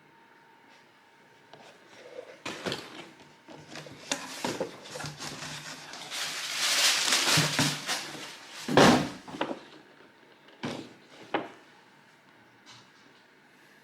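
Funko POP! box packaging being handled and opened: scattered taps and clicks, a stretch of rustling about six to eight seconds in, then a louder thump just after it and a couple more knocks.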